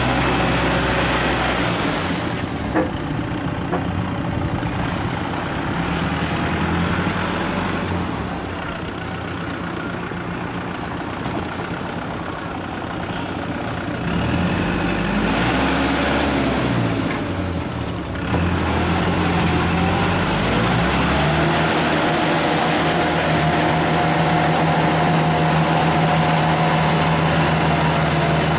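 Kubota tractor's diesel engine running under load while pulling a rotary tiller through paddy mud. The engine note shifts several times, rising and falling around the middle, then settles into a steady, louder run.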